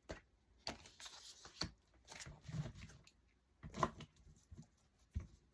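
Tarot cards being handled: a few light taps and short papery slides of cards against the deck.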